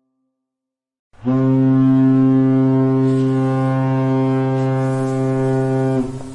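Ship's horn sounding one long, steady, deep blast that starts about a second in and stops near the end with a short fading tail.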